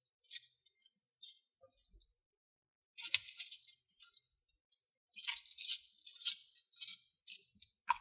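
Putty being squeezed and pulled by hand, giving off faint crisp clicks and crackles in several short clusters.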